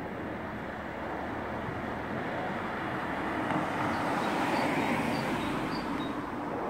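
A car passing close by: its tyre and engine noise swells to a peak about five seconds in, then fades.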